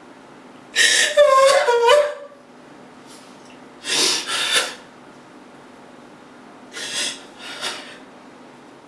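A woman sobbing: a wavering, pitched cry about a second in, then gasping, breathy sobs near the middle and twice more near the end.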